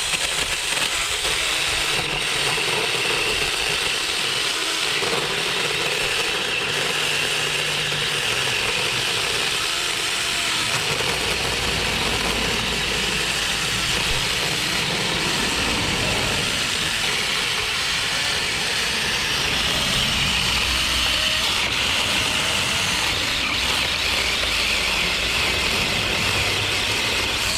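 Tomy Vic 6-inch electric mini chainsaw running steadily as its chain cuts through the base of a tree trunk. It cuts off near the end.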